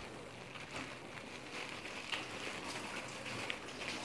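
Faint steady hiss of background room noise with a few light ticks.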